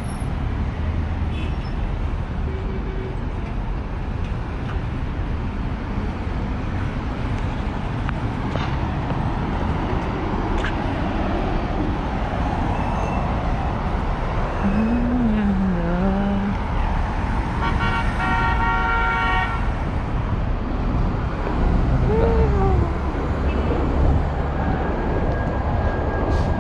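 Steady city road traffic running past, with a vehicle horn sounding once for about a second and a half some way past the middle.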